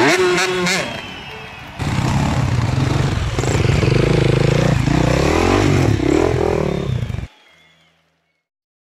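Dirt-bike engines revving and running, their pitch rising and falling, with voices in the first second. The engine sound stops suddenly about seven seconds in.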